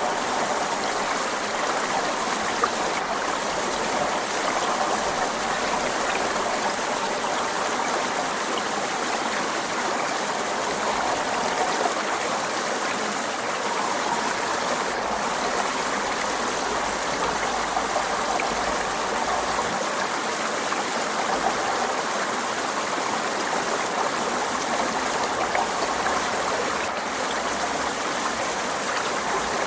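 Forest stream running steadily, water splashing and gurgling over rocks.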